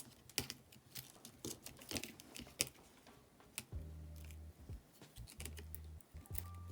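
Faint small clicks and taps of tools working on an iPhone 8's internals, as the fragile screen and battery flex cable connectors are pried off the board. A low steady hum comes in about four seconds in and stops and starts a couple of times.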